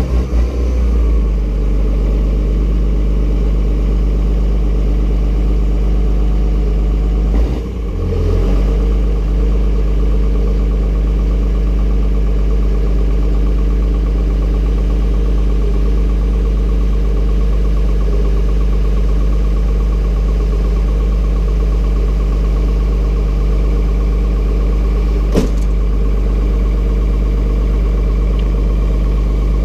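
Cummins diesel engine idling steadily just after a cold start in deep cold. Its note dips and shifts briefly about eight seconds in, and there is a single sharp click near the end.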